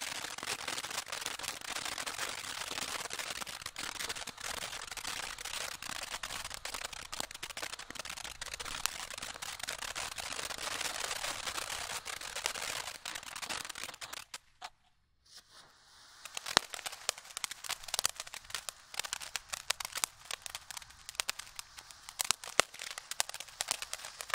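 A multi-effect ground fountain firework (Standard Fireworks Abracadabra) burning. For about fourteen seconds it gives a steady hiss of sparks thick with fine crackling. After a short gap of near silence it goes on as a sparser run of sharper crackles and pops.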